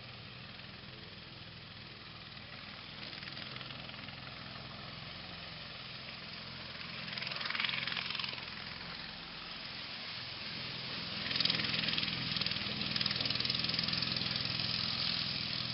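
Small go-kart engine running steadily, getting louder with a rushing hiss over the last few seconds as the kart drives by.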